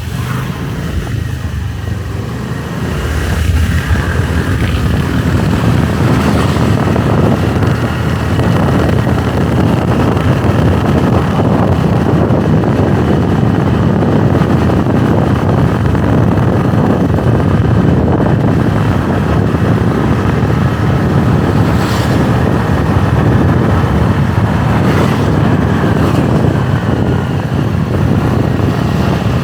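Motorbike riding along: engine and road noise mixed with wind rushing over the microphone. It grows louder about three seconds in and then stays steady.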